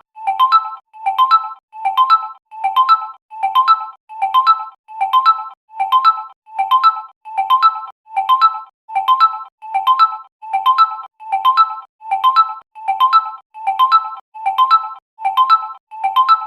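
Realme smartphone ringtone: a short, bright electronic figure of a few quick mallet-like notes, looping without a break about every four-fifths of a second.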